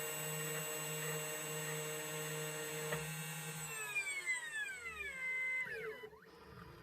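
CNC key cutting machine's cutter motor running with a steady whine, then winding down in falling pitch and stopping about four to six seconds in as the key cut finishes.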